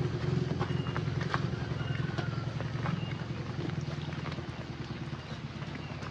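Motorcycle engine running steadily at low revs, fading slightly toward the end, with footsteps on a wet gravel path.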